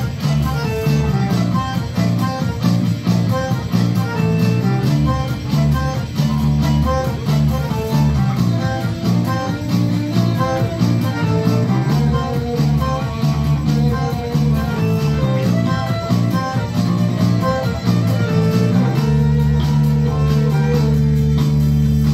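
Live tango band playing: violin over an electric bass guitar line, with electronic accompaniment. From about 19 s in, the low part settles into a steady held passage.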